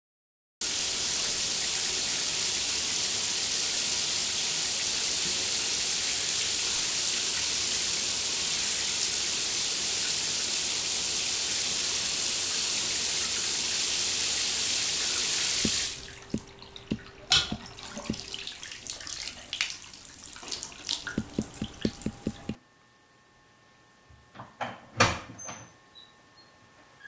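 Water running steadily from a tap or shower, a loud, even hiss that stops abruptly about sixteen seconds in. Quieter scattered clicks and knocks follow, and a few soft knocks come near the end.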